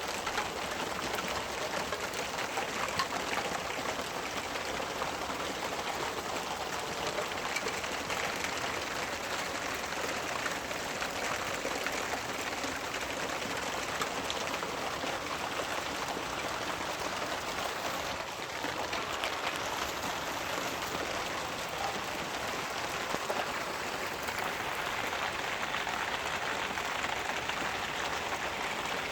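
Steady rain falling, an even hiss of drops with scattered small ticks.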